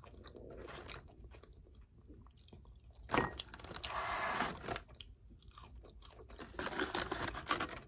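A person chewing and crunching crispy fried food, with louder crunchy bites about three seconds in and again near the end.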